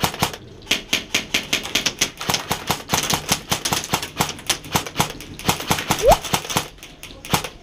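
Airsoft gun firing quick strings of shots, sharp clicks several a second, irregularly spaced. A short rising squeak about six seconds in.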